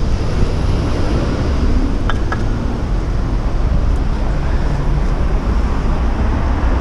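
Steady street and traffic noise heard from a moving bicycle, with wind rumbling on the camera microphone. Two brief high squeaks sound about two seconds in.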